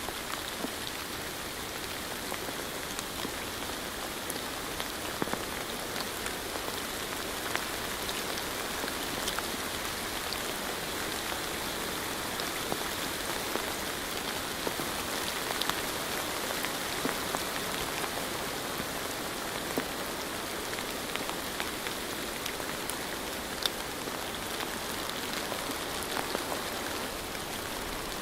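Steady rain falling, a continuous hiss with many distinct drops ticking at irregular moments.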